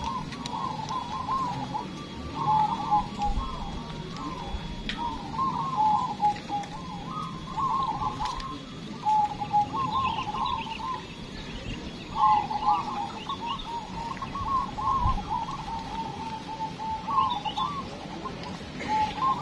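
Many caged zebra doves (perkutut) cooing together, their coo phrases overlapping and following one another with only short gaps.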